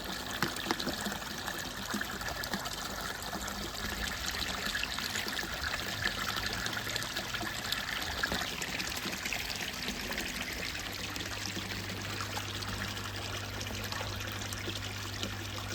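Water trickling steadily into a garden koi pond, with small scattered clicks and splashes. A low steady hum comes up about two-thirds of the way in.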